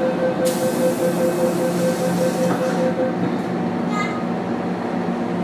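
MTR M-train electric multiple unit heard from inside the car while running: steady rumbling running noise with a pulsing whine for the first few seconds, and a hiss lasting about two and a half seconds starting half a second in.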